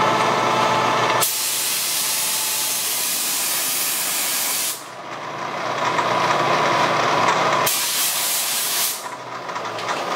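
Compressed-air blow gun hissing in two blasts, blowing aluminum chips away from the cut: a long one of about three and a half seconds starting about a second in, and a shorter one near the end. Around and between the blasts, a Bridgeport milling machine runs with a steady whine as a three-flute end mill cuts a flat seat into an aluminum cylinder head.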